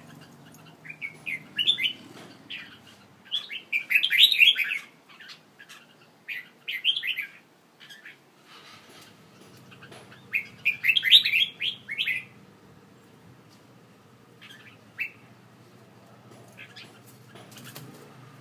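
Caged songbird singing in short bursts of quick chirped and warbled phrases, loudest about four seconds in and again around eleven seconds, with quiet gaps between.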